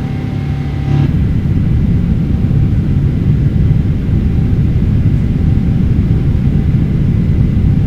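Steady low rumble of a Boeing 777-300ER's engines and airflow during the climb after takeoff. It steps up a little louder about a second in and then holds steady.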